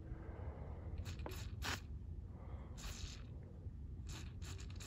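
Aerosol can of penetrating oil sprayed in several short hissing bursts onto a seized, broken-off thumb screw to loosen it.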